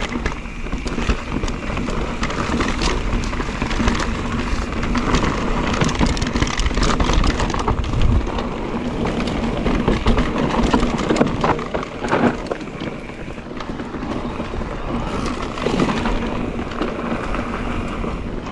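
Mondraker Crafty electric mountain bike ridden over rough trail: tyres rolling and crunching over stones, with a continuous rattle of knocks from the chain and frame.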